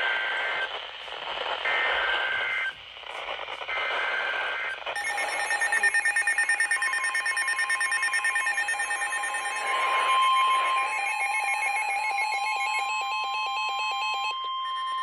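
Emergency Alert System header: three short bursts of warbling two-tone data, each about a second long, then a long steady alert tone beginning about five seconds in, which announces a flood warning about to be read.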